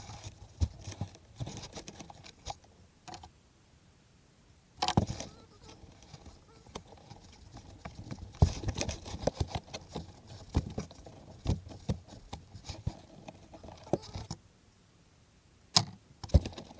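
Scattered clicks, taps and light rattles of hand tools and wire crimp connectors being handled while splicing car wiring, with a few sharper knocks and two short pauses.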